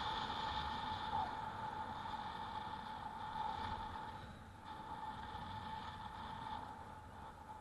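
E-bike on the move: a steady whine over wind and road rumble, growing quieter in the second half.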